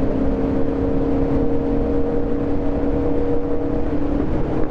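Kawasaki motorcycle engine running at a steady pitch while riding, with wind rumbling on the microphone; the engine note fades slightly near the end.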